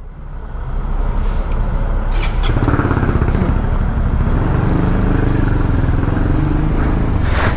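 Honda CB150R motorcycle's single-cylinder engine running as the bike rides off, getting louder over the first second or so and then holding steady.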